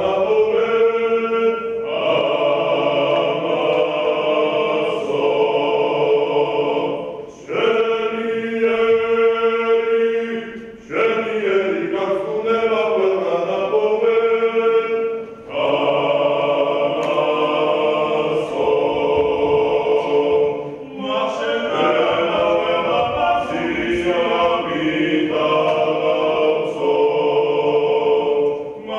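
Choir singing a Georgian folk song unaccompanied, in long held phrases a few seconds each with short breaks between them.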